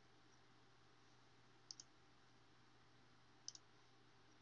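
Computer mouse clicking twice, about two seconds apart, each click a quick double tick, over faint room hiss.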